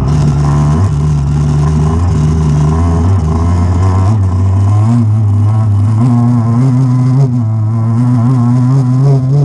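Off-road motorcycle's engine running hard under way, its pitch stepping up and down several times with throttle and gear changes, picked up close from a handlebar-mounted camera.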